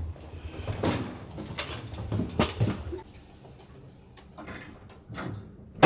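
Scattered knocks and clicks over rustling, from someone moving about and handling gear, growing quieter about halfway through and ending in one sharp, loud knock.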